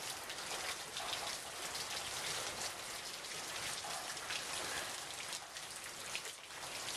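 Steady rain falling: an even hiss of many drops with no breaks.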